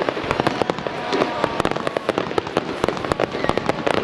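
Fireworks display: shells bursting in a rapid, unbroken run of bangs and crackles, many a second.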